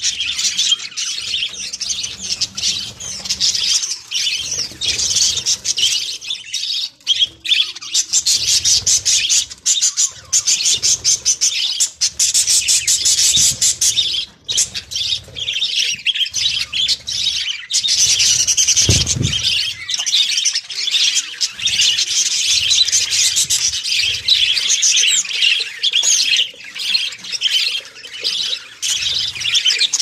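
A flock of budgerigars chattering continuously with dense, rapid chirps and squawks. A brief low thump comes a little past the middle.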